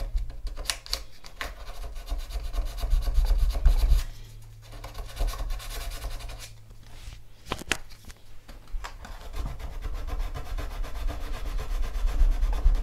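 Wooden moulding on a model ship's hull being rubbed down by hand with an abrasive stick in quick back-and-forth strokes, with a couple of short pauses. A low rumble from the hull being handled runs underneath.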